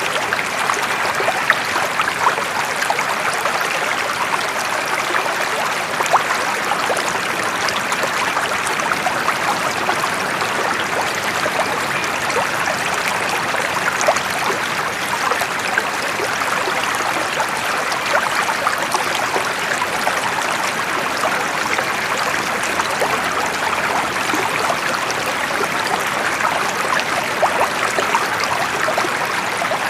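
Flowing water, a steady rush sprinkled with many small, sharp splashes and trickles.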